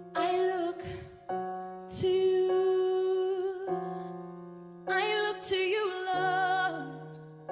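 A slow song: piano chords with a singer holding long, wavering notes, the voice entering at the start and again about five seconds in.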